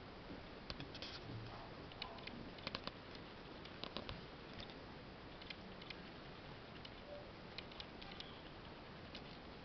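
Faint steady hiss with scattered small clicks and taps, a cluster of them about three to four seconds in: handling noise from a handheld camera being moved about.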